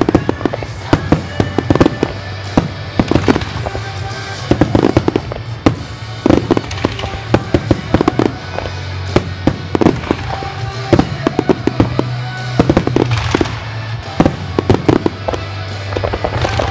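Aerial firework shells bursting in quick, irregular succession, sharp booms and crackles, with music playing underneath: a starmine barrage set to music.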